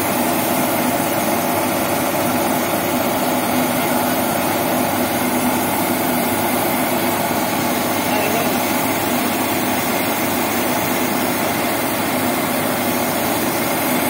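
Changfa combine harvester's diesel engine and threshing machinery running steadily while the unloading auger discharges rice grain, a constant dense mechanical drone.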